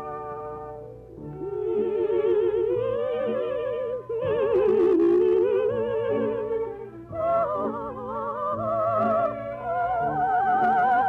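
Operatic singing with a wide vibrato over orchestral accompaniment, held notes sung in several phrases, the line climbing in pitch near the end.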